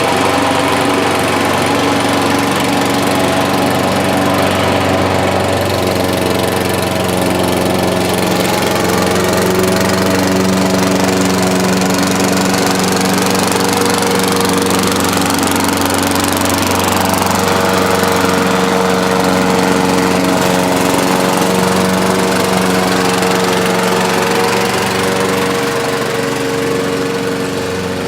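Gasoline lawn mower engine running steadily under load while mowing grass, growing a little quieter near the end.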